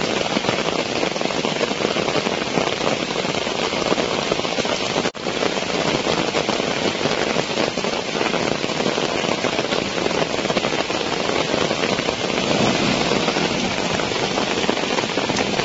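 Heavy rain falling, a dense steady hiss with a fine crackle, briefly cut off about five seconds in.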